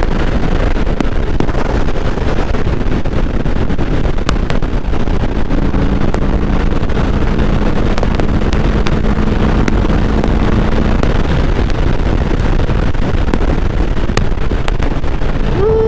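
Indian Chief Bobber's Thunder Stroke 116 V-twin running steadily at highway cruising speed, with heavy wind rush on the microphone.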